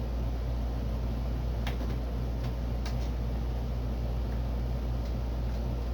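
A few light, sharp clicks and taps from hands and small parts working on a car door, over a steady low hum.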